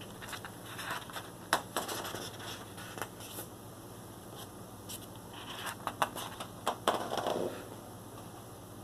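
Thick, cardstock-like pages of a large print book being turned by hand, twice. Each turn is a spell of paper rustling with a few sharp flicks and snaps as the sheet flips over.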